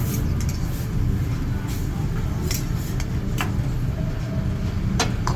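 Metal utensils clinking on a hibachi griddle: about six sharp separate clinks over a steady low rumble.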